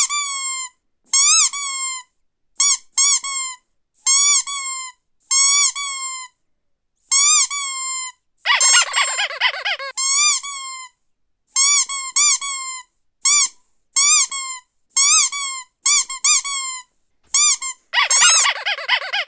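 Squeaky toy squeezed over and over, its short squeaks each rising then falling in pitch and coming mostly in pairs. About halfway and again near the end it is squeezed rapidly in a quick flurry of squeaks.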